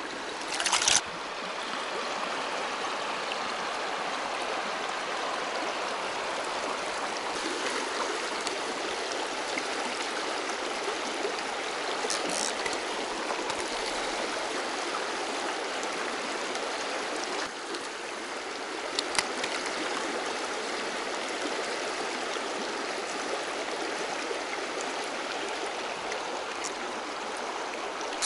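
Shallow, rocky river running over stones and riffles: a steady rush of water. About a second in, a short loud burst of noise, with a couple of faint clicks later on.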